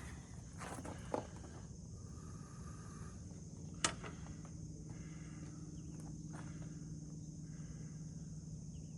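Insects chirring steadily in a high-pitched drone, with two sharp knocks, one about a second in and one near four seconds.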